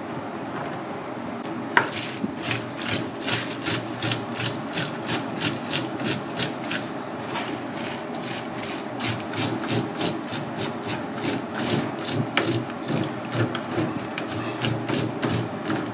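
Hand-held fish scaler scraping the scales off a whole fish in a plastic tray: rapid, scratchy rasping strokes, about three a second. One sharp knock comes just before two seconds in.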